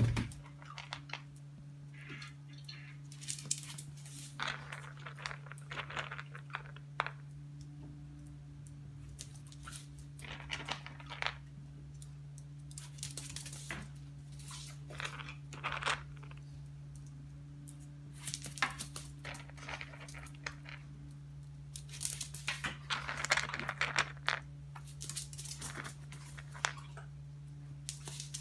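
A small dog's claws clicking and scrabbling on a tile floor as it spins and darts about, in scattered bursts, over a steady low hum.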